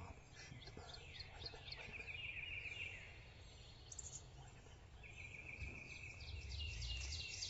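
Faint woodland birdsong: a songbird's quick, even trill of about a second comes twice, with scattered high chirps from other birds over a low rumble.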